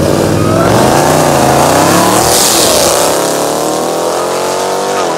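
Jeep Grand Cherokee Trackhawk's supercharged 6.2-litre V8, tuned to about 1000 hp, accelerating hard as the SUV drives off, its pitch climbing steadily through the second half and falling sharply near the end. A burst of hiss is heard about two and a half seconds in.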